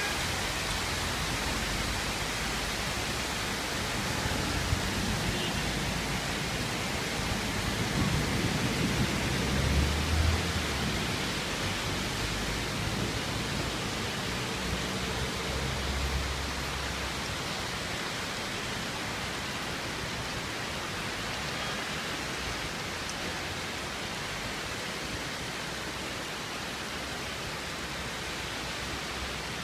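Heavy rain pouring down in a steady hiss. A low rumble swells and fades between about 8 and 17 seconds in.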